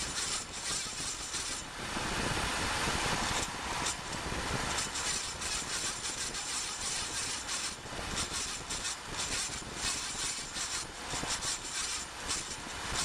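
Road and driveline noise recorded under a 2008 Ford Focus while it is driven, with rapid irregular ticking throughout and a louder rush for a couple of seconds near the start. The noise is the cold-weather axle noise that the owner traced to a broken seal spring rubbing on the front CV axle shaft next to the intermediate shaft bearing.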